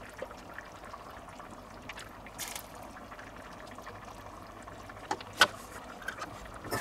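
Thick lecsó (pepper and tomato stew) being ladled from a steel pot and poured from a plastic measuring jug into a glass jar, a soft pouring and slopping. Two sharp knocks a little after five seconds in are the loudest sounds.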